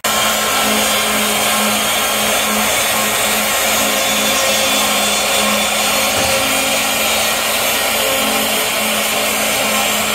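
Porter-Cable router on a CNC machine running at 18,000 RPM, cutting a groove into plywood: a loud, steady machine noise with a low hum underneath.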